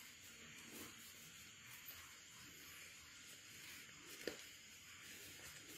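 Near silence: faint room hiss, with one small click about four seconds in.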